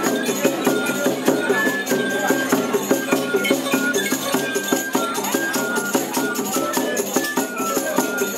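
Yoreme pascola dance music: a melody of short held notes over a dense, steady rattling from the dancers' cocoon leg rattles.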